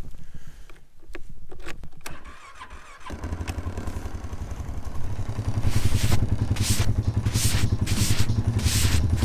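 A snow-covered ATV's engine starts about three seconds in and runs at a steady idle. From about halfway, rhythmic swishes of snow being swept off the machine by hand join it.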